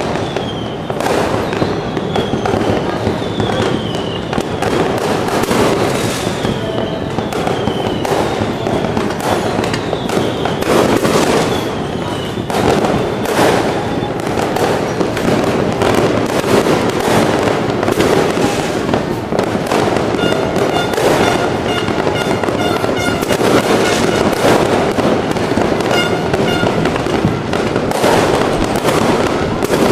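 Fireworks and firecrackers going off without a break: a dense stream of cracks and bangs, with a run of short falling whistles through the first half.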